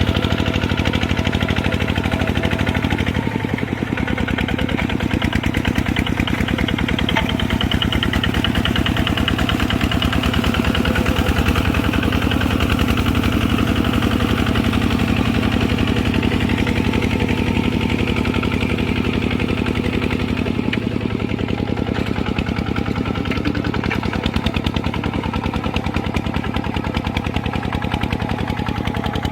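Kubota RT140 single-cylinder diesel engine running steadily with a rapid, even chugging.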